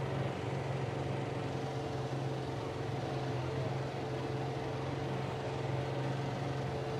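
John Deere 4075R compact tractor's diesel engine running steadily with a RhinoAg TS10 flex-wing rotary mower turning behind it. It makes a constant low drone with a steady higher hum over it, holding even without being pulled down.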